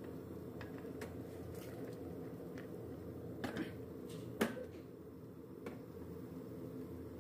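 A few light clicks and knocks of a stainless steel pot being gripped by its handles and tilted on a glass hob, the sharpest a little past halfway, over a low steady hum.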